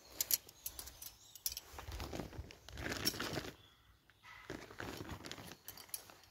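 Tent fabric rustling and metal tent pegs clinking as they are handled and fitted to the tent's elasticated peg loops, with scattered short clicks and a longer rustle a couple of seconds in.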